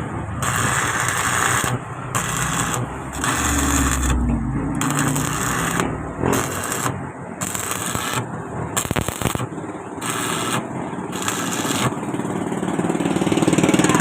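Electric arc welding a patch plate onto a vehicle chassis in short on-off runs: a crackling, hissing arc that starts and stops about once a second, as the plate is tacked and stitched on.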